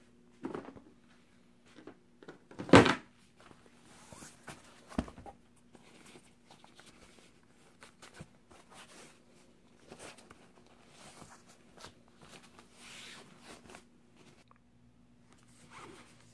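Laptop packaging being handled: one loud thump about three seconds in and a smaller knock about two seconds later, then a run of plastic rustling as the laptop is slid out of its thin black plastic sleeve.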